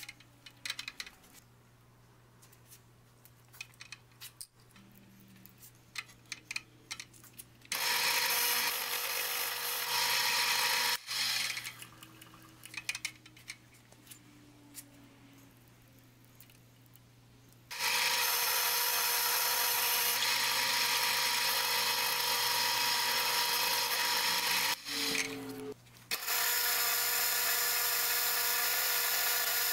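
Milling machine spindle turning a boring head to bore a pocket in a metal bearing block: a steady whine with a high hiss, running three times with pauses between. Before the first run there are scattered light clicks.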